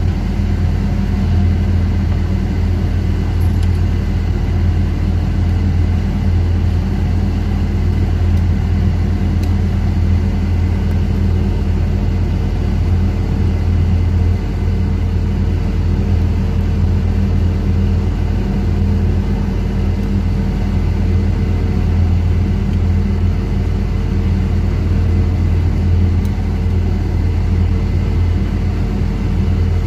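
Steady, loud machinery drone with a constant low hum that does not change.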